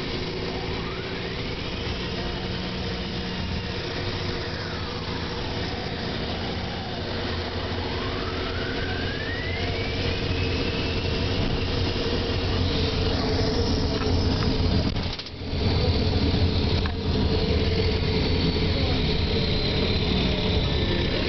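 Optare Solo SR single-deck bus heard from inside on the move. A steady low diesel drone runs under a whine that rises and then falls in pitch at the start, climbs again as the bus picks up speed, and briefly dips about fifteen seconds in.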